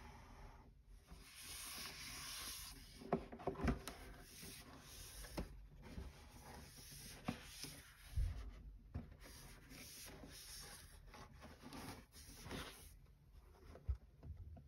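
Cotton-gloved hands rubbing and sliding over a cardboard shoebox, with a few sharp taps and knocks as it is handled and turned.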